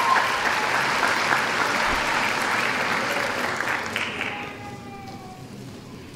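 Audience applauding a graduate crossing the stage; the clapping dies away about four seconds in.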